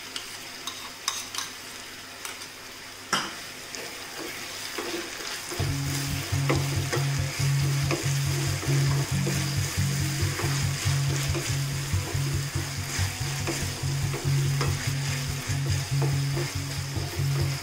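Onions, capsicum, ketchup and soy sauce sizzling in a non-stick wok, stirred with a slotted spatula that scrapes and clicks against the pan. About six seconds in, background music with a steady low beat comes in under the sizzling.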